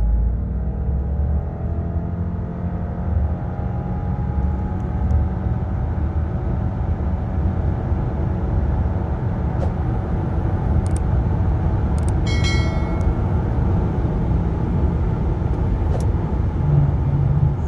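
2020 Subaru Legacy XT's 2.4-litre turbocharged boxer four at full-throttle acceleration, heard from inside the cabin. Its drone climbs steadily in pitch for the first several seconds, then holds high and steady as the Lineartronic CVT keeps the revs up, over road rumble. A brief high tone sounds about twelve seconds in.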